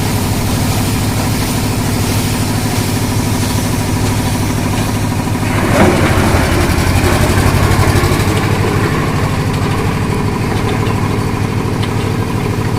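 Engine running steadily at a low, even speed. About six seconds in, a louder rushing noise rises over it for a couple of seconds.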